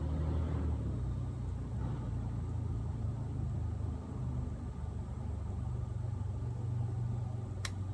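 A steady low mechanical rumble, like a motor running, with a single sharp click near the end.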